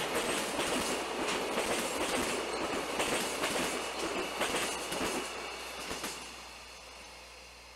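Freight train of container wagons rolling past, wheels clacking over the rail joints. The sound fades away about six seconds in as the last wagon clears.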